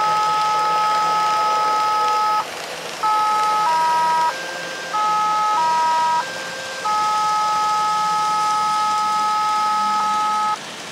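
Electronic tune of steady pure tones, sounding two or three notes together, held for half a second to several seconds with short breaks between chords.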